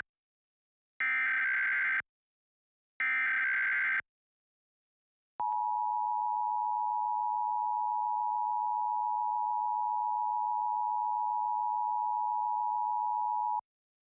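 Emergency Alert System test tones: two one-second bursts of SAME digital header data, a second apart, then the EAS two-tone attention signal (853 and 960 Hz together), held steady for about eight seconds and cut off abruptly.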